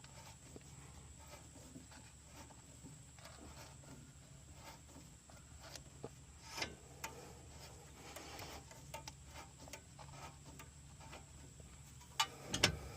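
Scattered light clicks and taps from hand work on a coilover, loosening and turning its adjustment, with a few louder clicks near the end.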